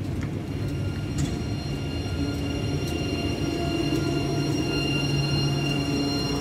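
Tram with a steady electric hum and whine over a low rumble: several held tones that grow stronger about two seconds in.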